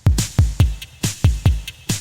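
Background music with a steady electronic drum beat: bass-drum kicks and hi-hat hits.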